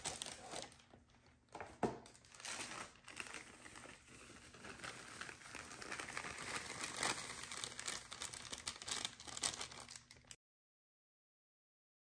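Plastic bag crinkling and rustling as dry cake mix is poured and shaken out of it, with small crackles throughout. It cuts off suddenly to silence about two seconds before the end.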